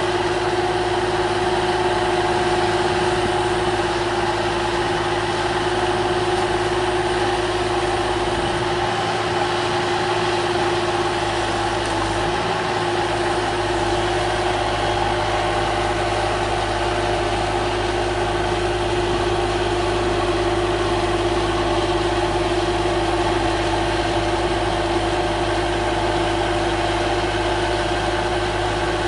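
An engine idling steadily, a constant hum.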